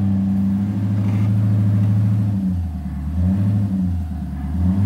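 Sixth-generation Chevrolet Camaro's V8 running at low revs as the car creeps along at walking pace. The engine note drops about halfway through, wavers, and rises again near the end.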